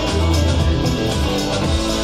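Outro music with guitar.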